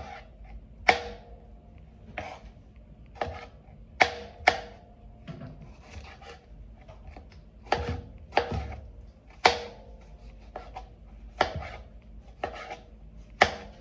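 Kitchen knife dicing a tomato on a plastic cutting board: about a dozen sharp knocks of the blade striking the board, unevenly spaced, roughly one a second.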